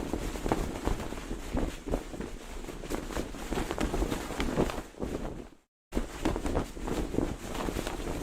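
Cloth flag flapping and snapping in the wind, an irregular run of quick slaps over wind noise on the microphone. The sound drops out to silence for a moment a little past halfway, then picks up again.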